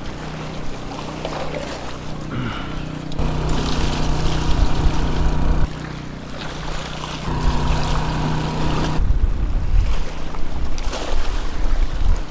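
Sea waves washing and splashing against jetty rocks, with gusts of wind buffeting the microphone and a steady low hum underneath.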